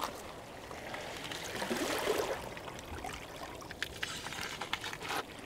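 Sea water washing and sloshing against jetty rocks, with one louder surge of wash about two seconds in.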